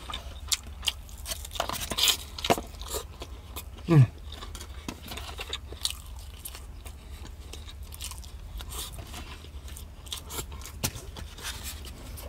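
Close-up chewing of marinated chicken tikka: irregular wet smacks and small clicks of the mouth and teeth, with a short falling 'mm' about four seconds in.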